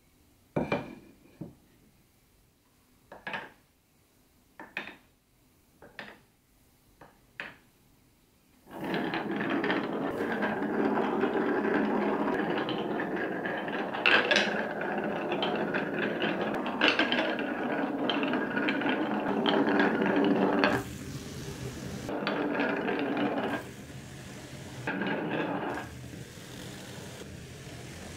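About seven sharp clicks as glass marbles are set down on wooden marble-run tracks. Then several marbles roll together down carved wavy wooden slopes, a dense continuous rolling rattle. It grows quieter in stretches over the last third.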